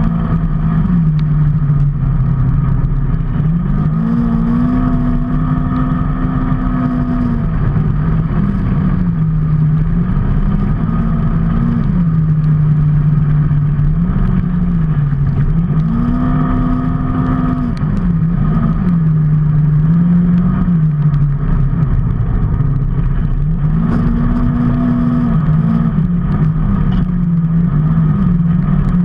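A motor vehicle's engine running on the move, its pitch climbing and dropping back about six times as it speeds up and eases off. Under it runs a constant low rumble.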